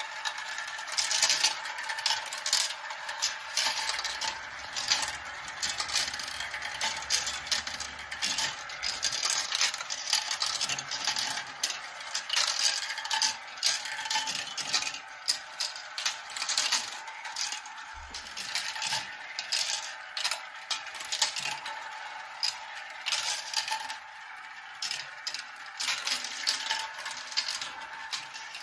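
Marbles rolling and clattering down a marble run track: a dense, continuous run of sharp clicks and rattles.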